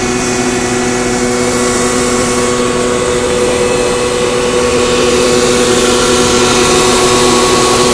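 Machinery running under power: a steady motor hum with several even tones over a constant whirring noise.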